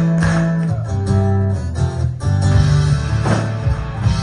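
Live rock band playing, with guitars to the fore over bass and drums.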